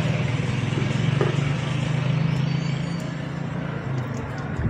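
A road vehicle's engine running with a steady low hum that fades after about four seconds, over a steady background hiss.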